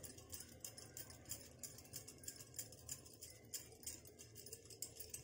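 Faint, quick, irregular clicking and clinking of bangles on a wrist as hands shape dough, over near-silent room tone.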